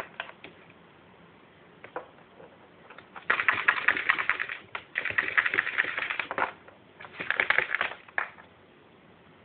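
Holland Lop rabbit digging, its claws scratching fast at a plastic tray: a few single scrapes, then three bouts of rapid scratching, each a second or so long.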